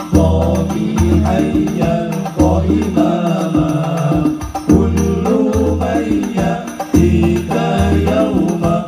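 Sholawat (Islamic devotional song) sung by a group of men's voices over hadrah frame drums (rebana) with jingles and a deep drum beat.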